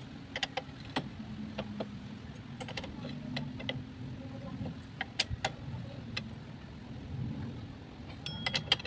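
Irregular metallic clinks and taps from a long steel bar working against the clutch basket and centrifugal (automatic) clutch drum of a Suzuki Shogun SP125 engine with its clutch cover off. A quick run of clinks near the end includes one that rings briefly. A steady low hum runs underneath.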